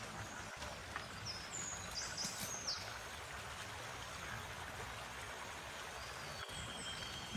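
Forest stream running steadily, with birds calling: a cluster of short high whistled notes about two seconds in, and a steady high thin note that starts near the end.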